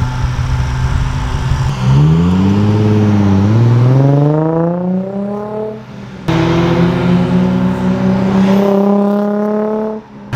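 Nissan 350Z's VQ35DE V6 exhaust through Berk resonated test pipes, idling and then revving as the car pulls away, its note climbing in pitch and fading. After an abrupt break about six seconds in, the exhaust note comes back and rises steadily as the car accelerates again, then cuts off suddenly.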